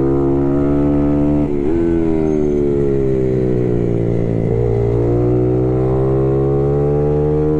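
Race motorcycle engine heard from the bike itself, running hard with a steady rush of wind and tyre noise. About a second and a half in the engine pitch jumps briefly, then sinks slowly as the bike slows into a bend. It changes again about halfway and then climbs steadily as the bike accelerates out.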